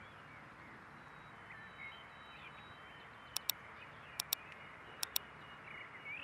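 Computer mouse double-clicks: three pairs of sharp clicks about a second apart, starting some three seconds in, over a faint outdoor background with birds chirping.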